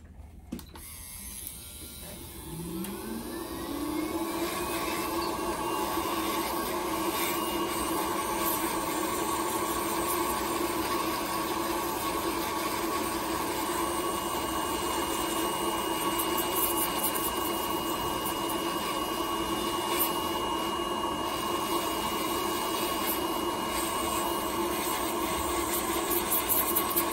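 Electric podiatry nail drill spinning up with a rising whine about two to three seconds in, then running at a steady pitch as its burr grinds down a thickened toenail.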